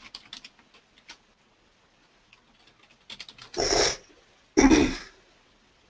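Light clicks of typing on a computer keyboard, then, a few seconds in, two short, loud bursts of sound about a second apart.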